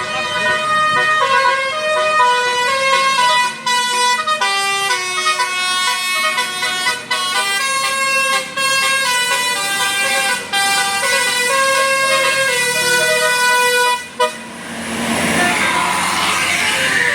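Basuri 'telolet' musical bus horn playing a melody of held, stepped notes for about fourteen seconds, then a burst of rushing noise before the melody starts again near the end.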